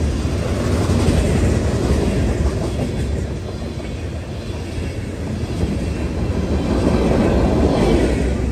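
Steady rumble and rail noise of a Norfolk Southern manifest freight train's covered hopper and tank cars rolling past close by on steel wheels, dipping a little midway and swelling again near the end.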